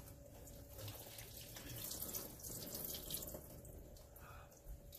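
Liquid from a can of corn being poured off into a kitchen sink: faint, irregular splashing and trickling that is strongest in the middle.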